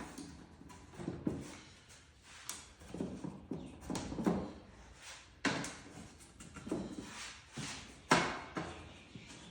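Irregular knocks and clatters of a CatCubby cat box's panels and pins being handled and pushed into place as the box is put together.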